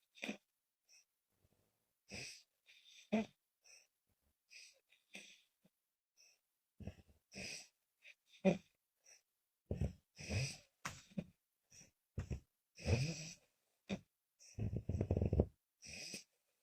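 A sleeping woman snoring as she breathes out and in, struggling for breath: short, irregular hissing breaths with no steady rhythm. In the second half they come closer together and louder, several with a low fluttering rattle, the strongest about fifteen seconds in.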